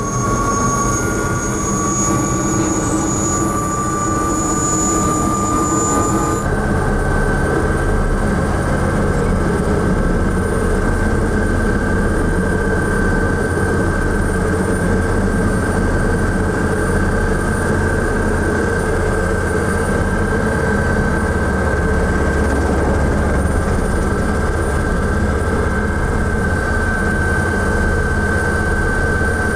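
Light propeller aircraft's piston engine running steadily, heard from inside the cabin: a loud, constant drone with a thin whine over it. The sound shifts abruptly about six seconds in, then holds steady.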